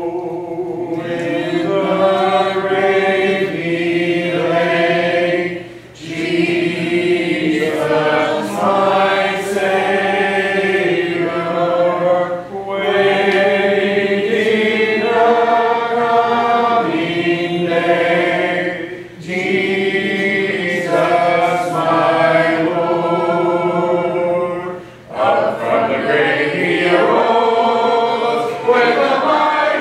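A congregation singing a hymn a cappella, with no instruments, in phrases of about six seconds with brief pauses between them.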